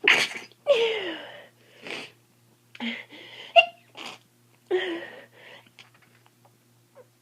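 A person with a head cold sneezing several times in quick succession, the bursts coming over the first five seconds or so and then dying away.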